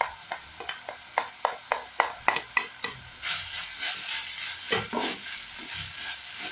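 A wooden spatula knocks and scrapes chopped coriander off a plate into a frying pan, a quick run of sharp clicks about four a second. From about three seconds in, minced meat sizzles as it is stirred with the coriander.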